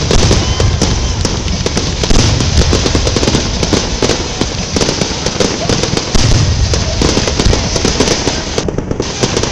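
Fireworks going off in quick succession: a dense, continuous crackle of many rapid pops and bangs from ground-level fountains and rising shells.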